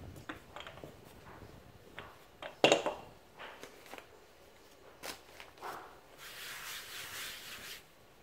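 Handling sounds from rolling out pastry dough on a granite countertop: light clicks and taps of a wooden rolling pin and hands, with one loud knock about two and a half seconds in as the pin meets the stone. Near the end comes a rustling hiss lasting over a second as hands slide and smooth the floured dough sheet.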